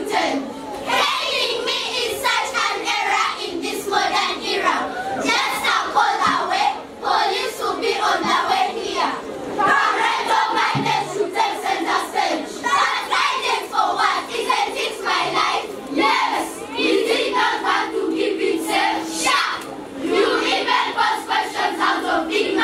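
Many children's voices chanting and singing together in chorus, part of a choral poem recitation.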